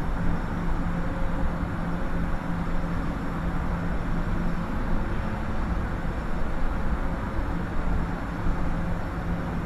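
Steel mill converter hall noise heard from high under the roof near the secondary metallurgy area: a continuous dense rumble of plant machinery, heaviest in the low range, with a steady low hum that weakens briefly a little past the middle.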